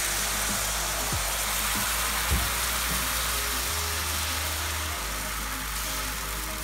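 Swedish pancake batter sizzling in a hot buttered frying pan, a steady hiss, with a light knock about two seconds in.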